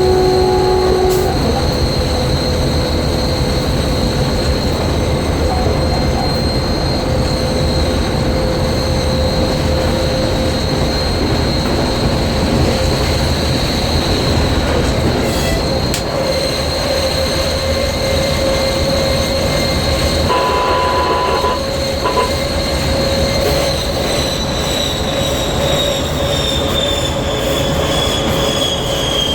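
TEP70 diesel locomotive's turbocharger whistling steadily at a high pitch over rolling wheel and rail rumble; near the end the whistle slowly falls in pitch.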